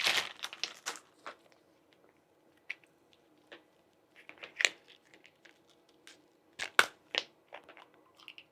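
Unboxing packaging and small items being handled by hand: a wrapper crinkling in the first second, then scattered light clicks and taps as items are picked up and set down, with a few sharper clicks in the second half.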